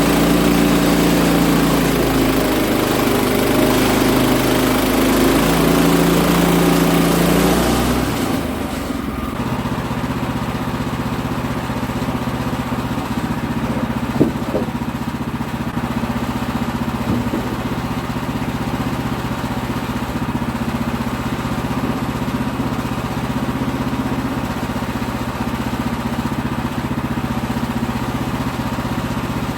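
Sawmill engine working under load as the saw cuts through a poplar log, its pitch wavering. About eight seconds in the cut ends, and the engine runs on steadily and more quietly, with one sharp click partway through.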